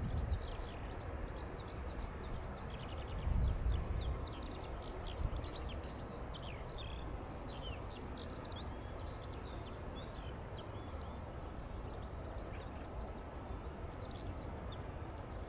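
Small birds chirping and singing rapidly and without a break over a steady low outdoor rumble. The rumble swells at the start and again about three seconds in.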